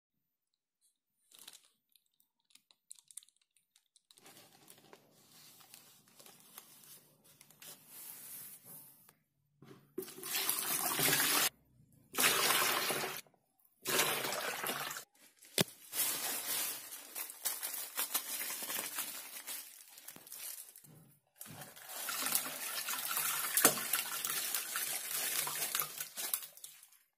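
Water running and splashing, in several bursts of a few seconds each broken by sudden gaps. Fainter clicks and light handling noise come first.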